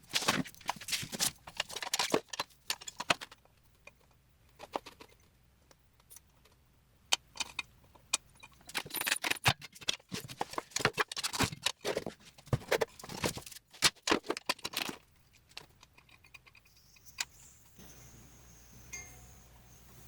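Irregular metal clanks and rattles from a manual tire changer and its bead breaker being worked on an old tire, in bunches with short pauses between.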